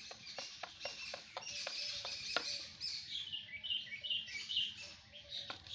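Peacock's beak tapping on a plastic tub as it pecks and drinks, a quick run of sharp taps that stops for a while in the middle and starts again near the end. Small birds chirp in the background, with a series of falling chirps while the tapping pauses.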